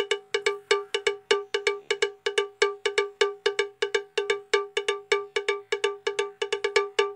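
A rapid percussion loop of a bright, cowbell-like struck note repeated at one pitch, about six strikes a second in an uneven repeating pattern.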